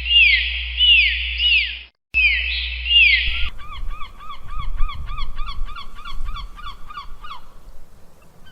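Bird calls. Short, high calls that rise and fall are repeated, over a steady low hum, in two spliced pieces with a brief break about 2 seconds in. Then comes a quick series of lower arched calls, about four a second, which stops around 7 seconds in.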